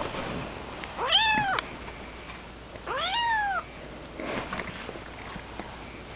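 Kitten meowing, two high-pitched calls that rise and then fall in pitch, about two seconds apart, with fainter mews between them.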